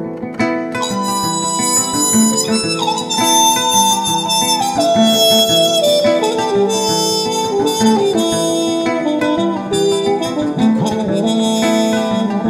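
Instrumental break in a song: a lead instrument holds long notes, with a glide down about a third of the way through, over plucked-string accompaniment and a steady pulse.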